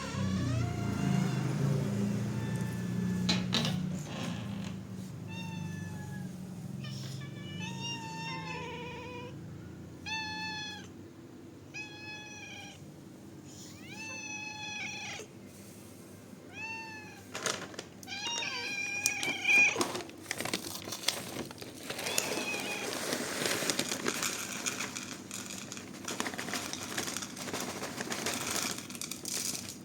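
Stray cats meowing repeatedly: about a dozen short calls in quick succession, followed by a stretch of rustling noise near the end.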